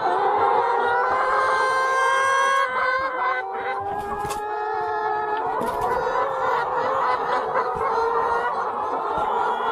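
A crowded flock of Hy-Line Brown laying hens calling all at once: many drawn-out, overlapping clucking notes in a steady din.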